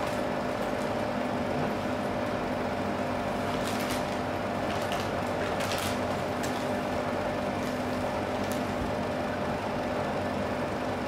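Steady machine hum holding a few fixed tones, with a handful of faint clicks scattered through it.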